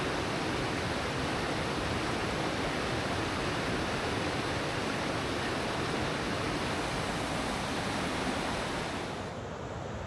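Rushing river water: a fast, shallow rainforest stream pouring over rocks, a steady rush. About nine seconds in it becomes slightly quieter and duller.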